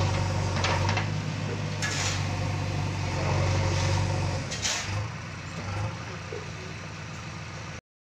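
JCB 3DX backhoe loader's diesel engine running with a steady low drone while the backhoe bucket works in gravel, with a few short hisses over it. The engine eases off about halfway through, and the sound cuts off abruptly near the end.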